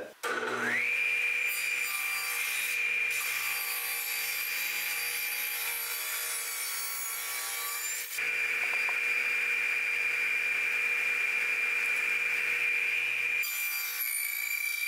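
Table saw starting up, its whine rising to a steady high pitch within the first second, then running steadily while cutting the cheeks of a bridle joint on a workpiece clamped upright in a tenoning jig. The sound dips briefly about eight seconds in.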